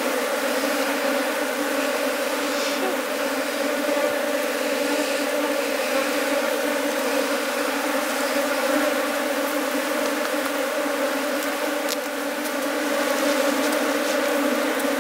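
A swarm of honey bees buzzing loudly and steadily around their nest, dug open in the ground with its combs exposed; the colony is disturbed as the honeycomb is cut out.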